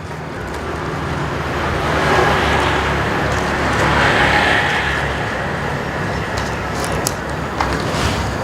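Vehicle-like rumble that swells to a peak around the middle and then eases, with a few light clicks near the end.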